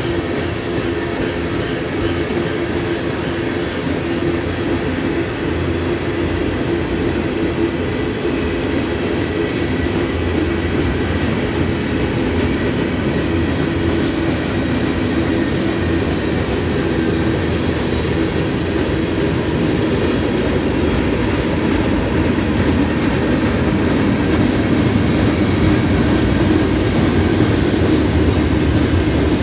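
Cars of a BNSF manifest freight train (coil cars, covered hoppers, gondolas) rolling past: a steady rumble of steel wheels on rail, growing slightly louder near the end.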